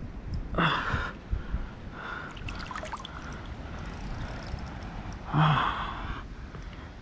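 Two hard, breathy gasps from an angler straining to fight a hooked barramundi on rod and reel, the first about half a second in and a louder one near the end.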